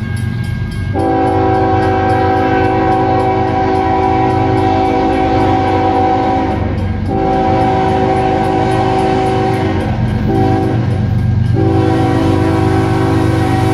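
Diesel locomotive air horn, a chord of several tones, blowing the grade-crossing pattern: two long blasts, a short one, then a long one held. Under it is the continuous low rumble of the approaching loaded coal train's locomotives.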